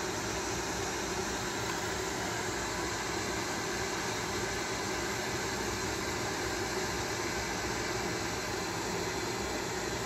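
Steady background hiss with a faint low hum and no distinct events: room tone.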